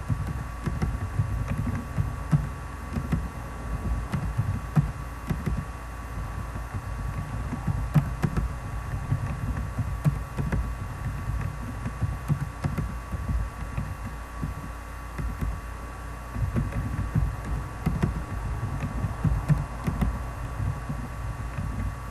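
Typing on a computer keyboard: irregular, dull key thumps and a few light clicks over a steady electrical hum with a faint high whine.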